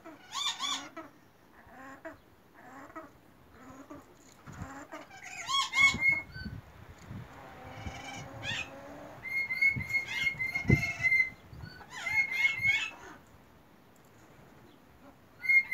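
Yellow-bibbed lory calling in short bursts of high, pitched, chattering notes, several times, some drawn out into a steady whistle, with a few low thumps in the middle.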